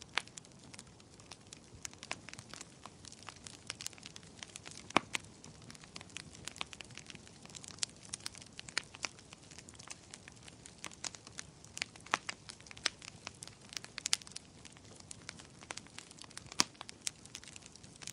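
Wood fire crackling: a soft steady hiss of burning broken by many irregular sharp pops and snaps, a few of them much louder than the rest.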